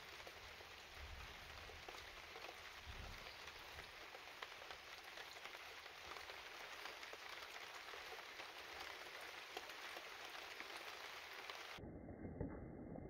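Steady rain falling, a faint even hiss with fine patter. Near the end the sound cuts abruptly to a duller, lower rumbling noise.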